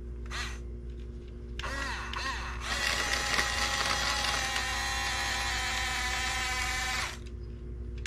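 Huina 1569 RC bulldozer's electric drive motors whining as it moves. Short whirs rise and fall in pitch in the first half, then a steady whine starts about three seconds in and cuts off about seven seconds in.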